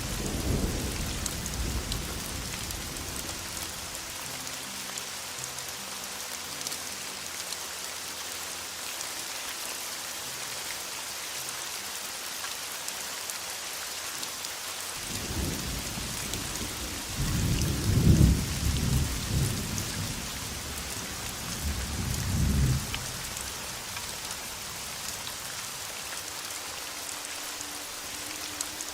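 Steady heavy rain hissing, with thunder rumbling. One rumble fades away at the start, then several rolls come from about halfway through, the loudest about two-thirds of the way in.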